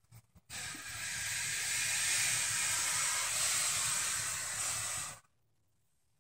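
A large female Burmese python giving one long defensive hiss. It starts abruptly about half a second in and cuts off after some four and a half seconds. She is agitated at having her clutch of eggs disturbed.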